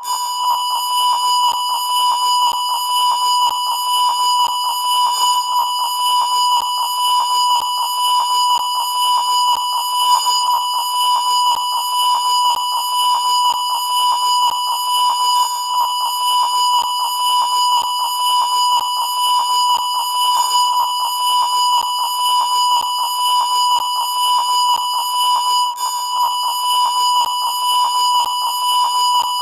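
TV colour bars test tone: a steady 1 kHz beep held without a break, with a buzzy edge from the higher tones above it.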